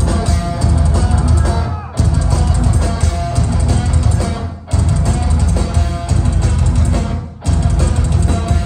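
Thrash metal band playing live: electric guitars and a drum kit in a stop-start riff. The whole band cuts out for an instant about every two and a half seconds, three times.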